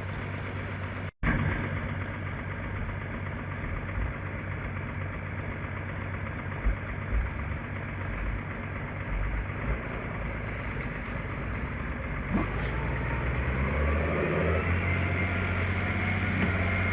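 A vehicle engine running steadily, broken off for a moment about a second in.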